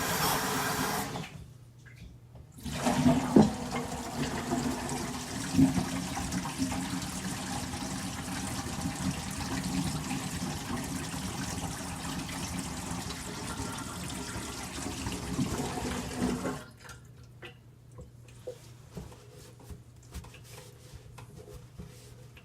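Water running and gurgling in a kitchen sink for about fourteen seconds, with a couple of louder splashes or knocks a few seconds in, then cutting off suddenly. Faint clicks and knocks follow.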